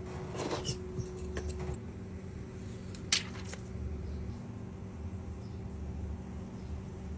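A few light clicks and taps early on, then one sharp click about three seconds in, over a steady low electrical hum.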